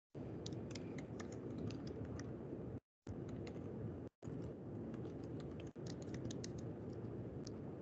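Typing on a computer keyboard, picked up by an open microphone on a video call: irregular key clicks over a steady background hiss. The audio drops briefly to dead silence twice.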